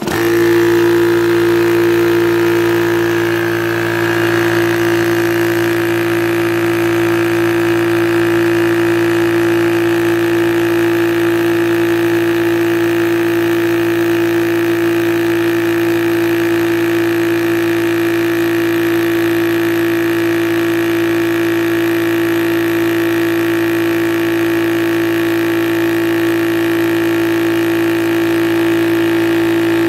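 Yong Heng 4500 psi high-pressure air compressor starting up suddenly and then running steadily with an even hum, pumping air into a PCP airgun through its fill probe.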